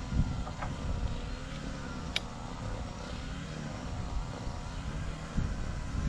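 An engine running steadily, with a few sharp clicks of wrenches on a hydraulic hose union fitting.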